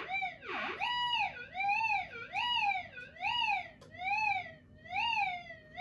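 Minelab SD2100 pulse-induction metal detector's audio tone warbling, swelling up and dipping down in pitch a little faster than once a second, as a Kalgoorlie hot rock is waved over its coil. The detector is still responding to the hot rock while its manual ground balance is being set.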